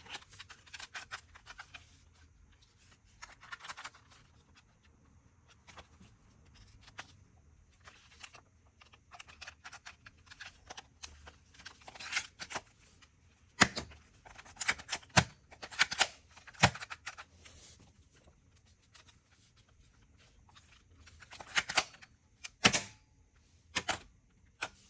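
Hands handling plastic toys and their packaging: irregular clicks, taps and rustling, with a few sharper clicks near the middle and again near the end.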